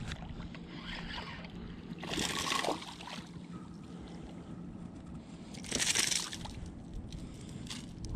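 Hooked ladyfish thrashing and splashing at the water's surface as it is reeled in: two splashes about three and a half seconds apart.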